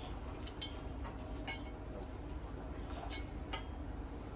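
Knife and fork clicking and scraping against the steak plate while cutting through tough, tendon-laden steak, several light clicks over a steady low room hum.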